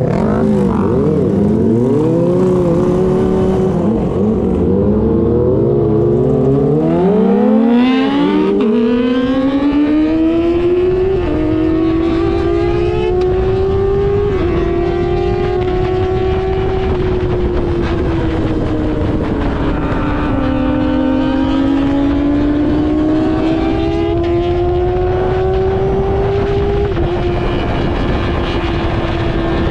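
Kawasaki ZX-25R's inline-four engine through an aftermarket R9 exhaust, blipped in quick revs at first and then accelerating hard through the gears. Its high-pitched wail climbs between shifts and drops sharply at each upshift.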